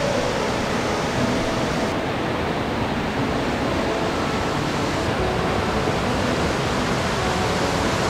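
Mountain stream rushing over granite rapids and boulders: a steady, unbroken noise of running water.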